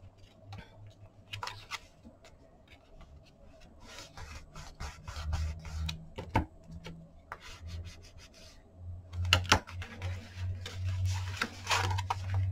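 Hands rubbing and smoothing kraft cardstock panels against a cutting mat, with paper rustling and scraping and a couple of sharper knocks, the loudest about nine and a half seconds in.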